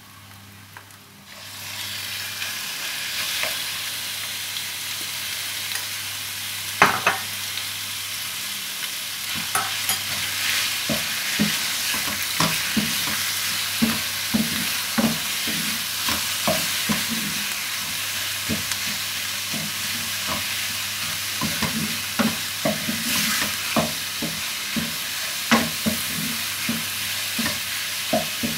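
Chicken breast frying in a pan with garlic, a steady sizzle that starts about a second and a half in. A spatula knocks and scrapes against the pan many times as the chicken is stirred, with one loud knock several seconds in.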